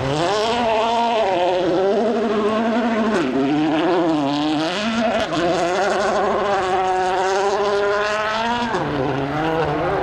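Rally car engine revving hard on a gravel stage, its pitch climbing and falling with the throttle, with sharp drops about three seconds in and again near the end.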